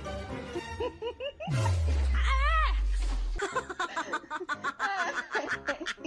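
Edited-in background music with comedy sound effects. About a second and a half in, a low tone slides down into a loud, held low rumble that stops abruptly about two seconds later, with a warbling tone over it. Snicker-like sounds come after.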